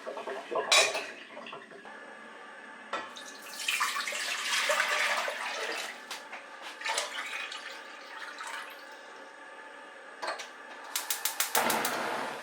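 Kitchen sounds: a kitchen tap running for a couple of seconds, with scattered clicks and clinks of utensils. A quick run of clicks comes near the end.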